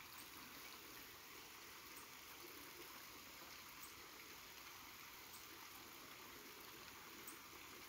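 Near silence: a faint, steady outdoor hiss with no distinct sound in it.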